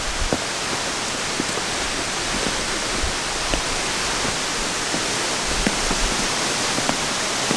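Waterfall rushing, full after heavy rain: a steady, even hiss of falling water, with a few faint clicks over it.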